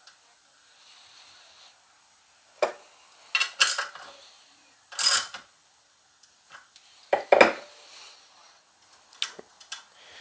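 Small steel valve-train parts (valve spring keepers, a retainer and the spring compressor tool) clinking and clicking against each other and the aluminium cylinder head as a valve spring is assembled. There are several sharp metallic clinks. The loudest come in a cluster around two and a half to four seconds in, again around five seconds, and near seven and a half seconds.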